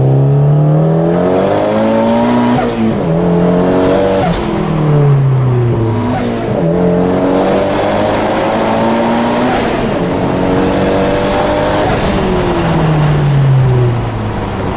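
Car engine accelerating through the gears: its pitch climbs, drops at each shift and climbs again, several times over, with a stretch of easing off near the end.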